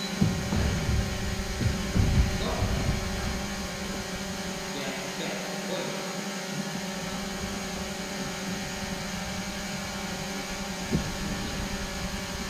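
Dull thuds of footsteps on the gym mat and floor during the first few seconds, and one sharp knock about eleven seconds in, over a steady hum.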